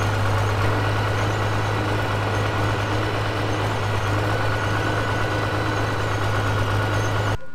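International 856 tractor's engine running steadily as the tractor drives along, a constant low drone that cuts off abruptly just before the end.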